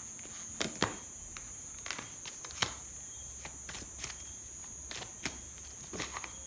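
Tarot cards being handled and laid down: a series of irregular soft clicks and snaps from the card stock. A steady high-pitched tone runs underneath.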